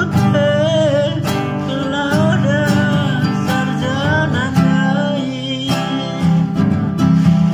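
A man singing with a wavering, sliding melody while strumming an acoustic guitar, roughly one strong strum stroke a second.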